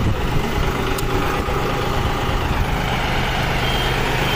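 Diesel engine idling steadily, an even low hum.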